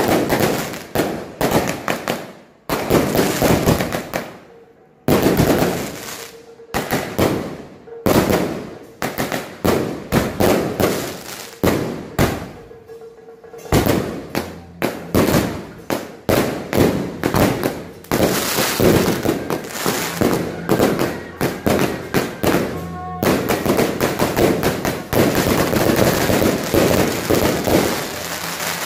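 Strings of firecrackers going off in fast crackling runs of bangs, with a few short lulls between runs.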